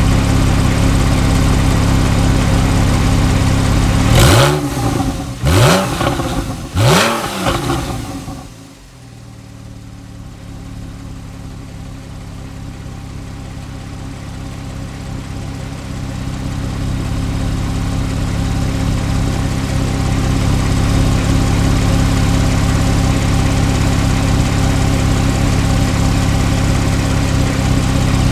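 Porsche 991.1 Carrera 4's flat-six with sports exhaust idling, revved sharply three times in quick succession. The sound then drops much quieter and slowly builds back to a steady idle.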